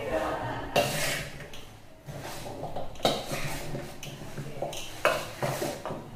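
Cut raw mango pieces being tossed and mixed by hand in a large steel bowl, knocking and rustling against the metal with several sharp clinks. The mango pieces are being mixed with the chili, salt and mustard powder for avakaya pickle.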